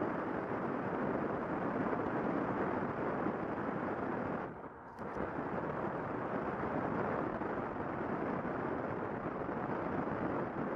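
Wind rush and road noise on the camera microphone of a motorcycle riding at speed, a steady rumbling hiss that dips briefly about four and a half seconds in.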